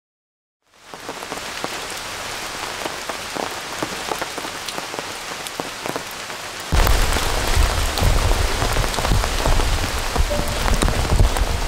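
Rain falling steadily, a dense hiss of many small drop ticks, starting about a second in. About seven seconds in it suddenly grows louder, with a deep rumble underneath.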